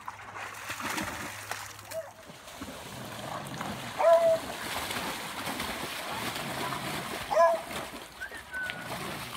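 A Great Pyrenees mix and a golden retriever splashing and wading through shallow river water as they play-wrestle. Two brief, loud, high cries stand out, about four and seven seconds in.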